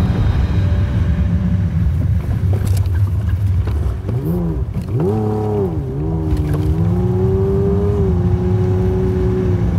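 Toyota Tacoma's engine running as the truck drives over a rough desert dirt road, under a steady low rumble. About four seconds in, the engine pitch rises and falls a couple of times as the throttle changes, then holds steady.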